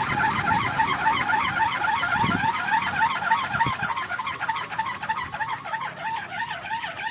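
Wooden kolecer wind propeller whirring as it spins in strong wind, a rhythmic warbling hum that wavers up and down several times a second, over wind rumble.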